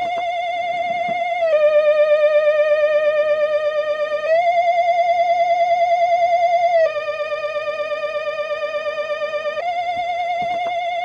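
Eerie theremin-like electronic tone with a fast, even vibrato. It slides back and forth between two pitches a step apart, changing about every three seconds, as a looping spooky Halloween sound effect.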